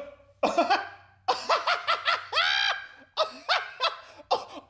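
A person laughing in a series of short bursts, one longer gliding laugh about halfway through.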